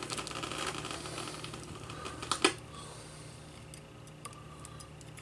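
Crackling static and hiss from a Sony WM-FX52 Walkman's FM radio played through an amplifier, fading down over the first couple of seconds. There is a sharp click about two and a half seconds in, then faint ticks over a low hum.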